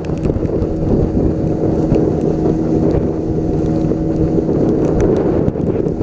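Small outboard motor running steadily at speed, pushing an aluminium boat, with wind buffeting the microphone.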